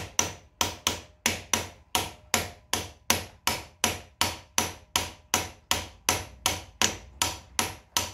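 Small hammer tapping lightly and evenly, about three taps a second, on a socket that drives a new front wheel bearing race (cup) into the hub of a 1950 Farmall Cub. Each tap gives a short metallic ring. The taps go on until the race seats with a solid sound.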